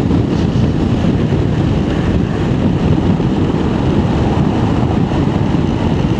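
Steady wind roar at the helmet-mounted camera mixed with the running of a Honda NX500's parallel-twin engine, cruising at about 110 km/h in sixth gear with the rider sitting fully upright behind the standard screen.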